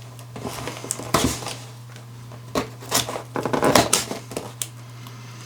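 A taped-up cardboard parcel being opened by hand: irregular scraping, crackling and rustling of tape and cardboard, busiest about three and a half to four seconds in.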